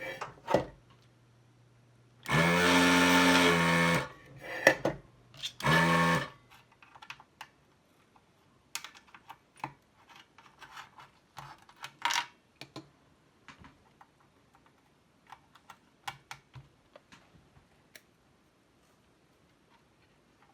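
Vacuum pump of an electric desoldering tool running in two bursts, a long one of about two seconds and a short one a couple of seconds later, sucking molten solder off the ROM chip's legs. Then scattered light clicks and taps of tools on the circuit board.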